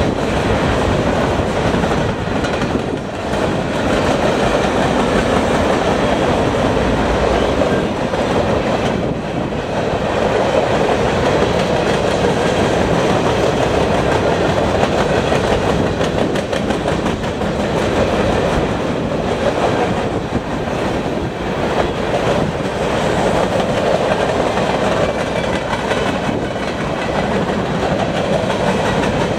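Empty centerbeam flatcars of a freight train rolling past: a steady, loud rumble of steel wheels on rail with the clickety-clack of wheels crossing rail joints.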